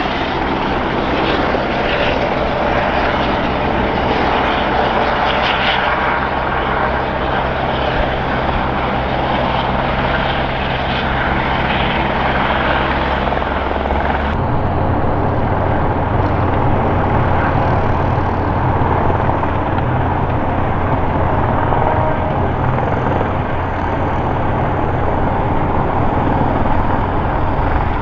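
Airbus EC120B Colibri helicopter running in low flight: the steady low beat of its three-blade main rotor under the rush of its single turboshaft engine. The sound shifts abruptly about halfway through.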